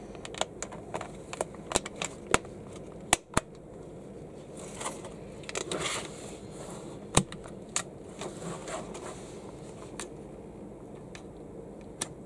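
Hard plastic of an LOL Surprise Under Wraps capsule being handled: scattered sharp clicks as the code switches on its side are pressed, with a brief rustle of plastic around the middle.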